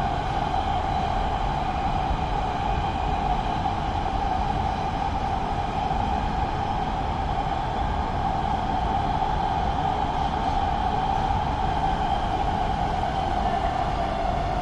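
Los Angeles Metro Rail train running along the track: a steady rumble with a constant mid-pitched hum, unchanging throughout.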